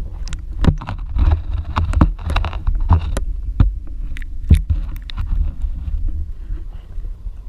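Water sloshing and knocking against a GoPro's waterproof housing as the camera dips below the surface, over a steady low rumble. A run of sharp knocks and clicks fills the first five seconds, then the sound settles to the rumble alone.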